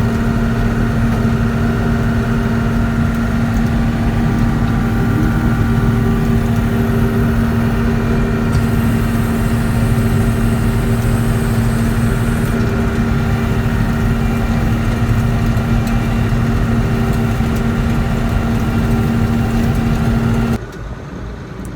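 Combine harvester engine running steadily at a constant speed, a loud even hum with a steady tone.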